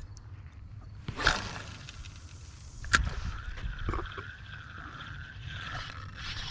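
A fishing cast swishes out about a second in. A sharp click comes near three seconds, then a spinning reel is cranked with a wavering, repeating whir.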